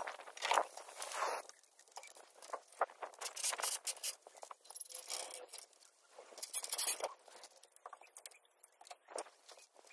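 Steel scaffold tubes being handled across a tiled roof: irregular scraping with scattered short knocks.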